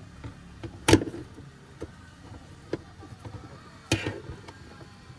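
Pliers knocking and clicking against a car's fuel pump retaining ring on top of the fuel tank while the ring is worked loose: two sharp knocks about three seconds apart, with lighter clicks between.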